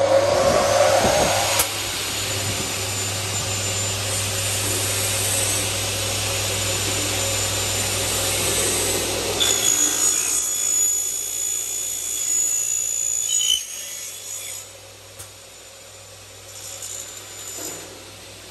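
Single-head aluminium-cutting mitre saw, 355 mm blade on a 220 V induction motor, running with a steady hum. From about 9 to 13 seconds in, the blade cuts through an aluminium window profile with a high ringing whine. The sound then drops off sharply.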